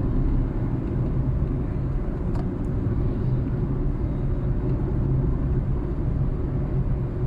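Car engine and tyre noise: a steady low rumble.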